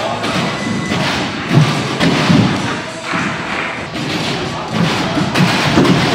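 Heavy dull thuds of gymnasts taking off and landing on a sprung tumbling track and landing mats, several spaced irregularly, the strongest about a second and a half in, around two seconds in and near the end. Voices and music sit underneath.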